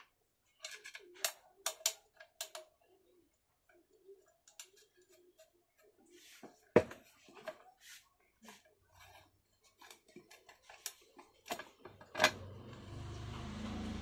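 Metal clinks, taps and clicks from handling a table fan's steel base plate and fitting its nut and screws. A sharp knock comes about seven seconds in and another about twelve seconds in, then a steady rubbing noise over the last two seconds.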